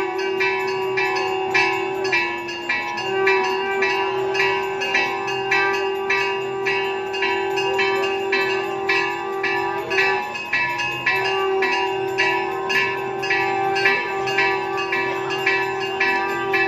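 Temple bells rung rapidly and steadily, about three strikes a second, over a continuous ringing tone.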